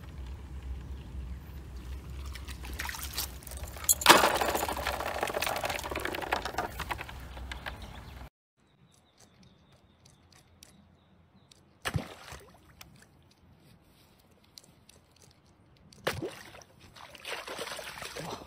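Water splashing and pouring: a sudden loud splash about four seconds in, followed by a stream of pouring, trickling water that slowly dies away. After a quiet gap come two short splashes of a fish thrashing at the surface.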